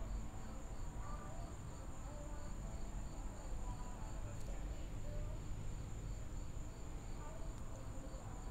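Crickets chirping at dusk: one high, steady trill, with another insect pulsing in an even, quick rhythm just below it, over a low background rumble.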